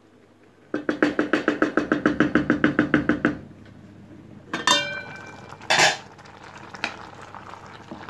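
A rapid, even run of pitched knocks, about eight a second, lasting under three seconds. Then a ringing metallic clank, like an aluminium pot lid, about four and a half seconds in, and a duller knock about a second later.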